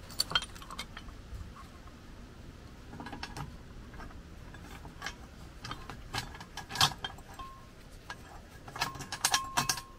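Steel mount bracket, bolts and channel nuts clicking and clinking against a steel strut channel as they are handled and fitted. Scattered knocks, with a quick run of clinks near the end.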